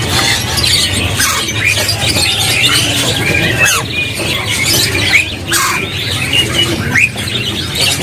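Many caged songbirds chirping and calling at once, short whistled notes sweeping up and down and overlapping, over a steady low hum.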